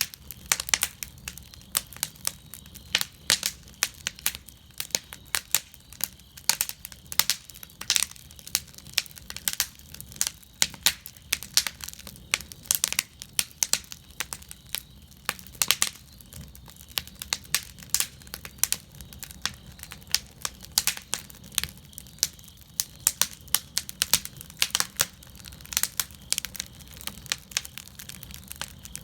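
Fire burning in a fire cauldron, crackling with many irregular sharp snaps and pops over a low steady rumble.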